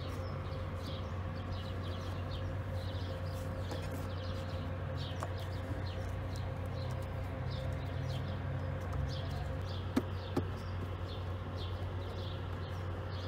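Small birds chirping over and over against a steady low hum, with two sharp clicks close together about ten seconds in.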